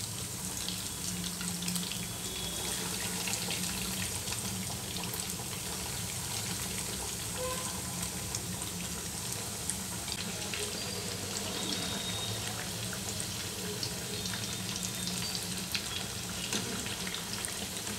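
Breadcrumb-coated potato cutlets deep-frying in hot oil: a steady sizzle with fine, continuous crackling.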